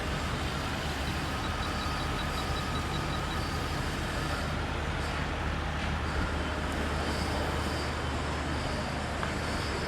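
Jaguar engine idling steadily with a misfire, which the coil tester shows is not from the ignition coils and which the mechanic puts down to a faulty injector. A faint high-pitched beeping, about five a second, stops a few seconds in.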